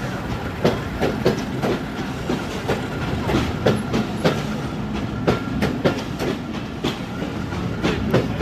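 Passenger train running along the track, its wheels clacking irregularly over rail joints above a steady low rumble.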